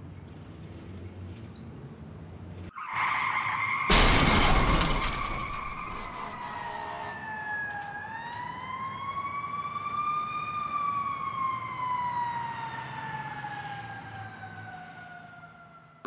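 Car crash sound effects: a low car hum, then a held high tone about three seconds in and a loud crash a second later. A siren follows, wailing slowly down, up and down again, fading out near the end.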